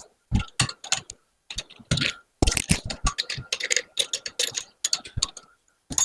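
Hand rivnut tool being wound back out of a freshly set M8 rivnut: a quick, irregular run of sharp metallic clicks and ticks, several a second.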